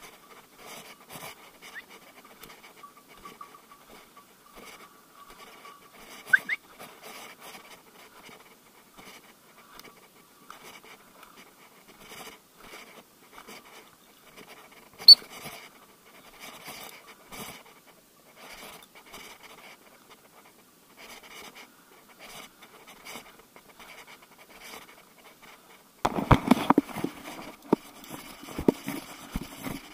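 Footsteps crunching through woodland leaf litter and grass, then, about four seconds before the end, loud rustling and snapping as the walker pushes fast through dry bracken and brush. One sharp, high chirp sounds about halfway through.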